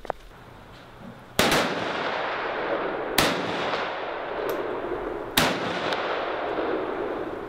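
Rifle fired three times, a shot about every two seconds, each sharp crack followed by a long rolling echo that dies away slowly.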